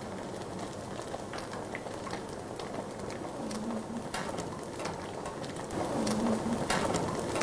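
Minced catfish deep-frying into a fluffy, crispy pla duk fu raft in a wok of hot oil: a steady sizzle full of small crackles and pops as the oil bubbles through the fish.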